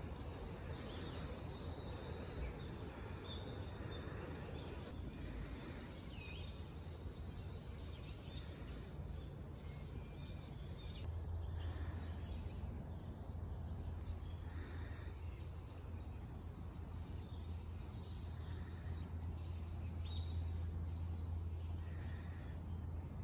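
Outdoor ambience: scattered bird chirps and calls over a steady low hum, which grows stronger about halfway through.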